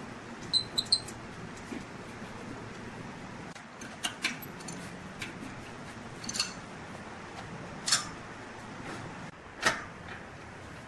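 Wood lathe running with a steady hiss, broken by sharp clicks and a quick run of three short metallic clinks about a second in.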